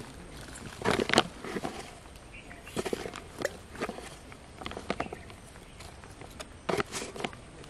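Clear plastic jar being handled and tipped over a steel bowl as its white feed is shaken out: irregular clicks, taps and rustles in short clusters.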